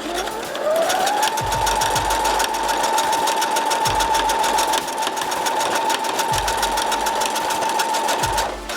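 Brother SQ9185 computerized sewing machine stitching out programmed monogram letters. Its motor whine rises in pitch over the first second as it speeds up, then runs steady with rapid needle strokes. It stops just before the end.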